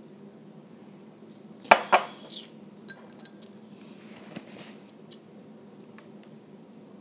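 A drinking glass set down on a hard surface with two sharp knocks just under two seconds in, followed by a few lighter, ringing clinks and one more knock.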